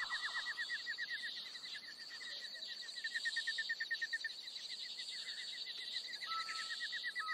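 Outdoor nature ambience: a bird calling in rapid trains of short falling chirps, about ten a second, over a steady high insect-like hiss, with a few short flat whistles near the end.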